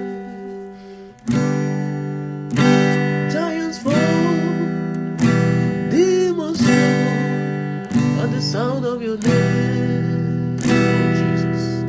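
Acoustic guitar strumming slow chords, about one strum every second and a quarter, each chord left to ring and fade before the next, in a slow worship song.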